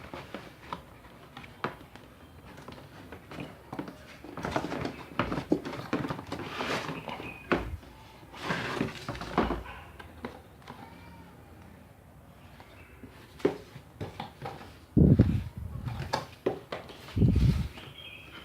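Packaging of a new drill set being handled and opened: irregular rustling and light knocks, with a few heavier low thumps near the end.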